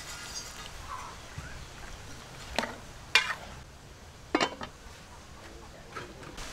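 Aluminium pot lid knocking against the pot as it is put on: a few sharp metallic clanks, the loudest about three seconds in.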